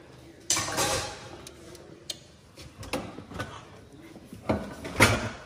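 A kitchen drawer of pots and pans pulled open and rummaged through: a rattling clatter about half a second in, a few knocks, then a louder clatter of the pans near the end.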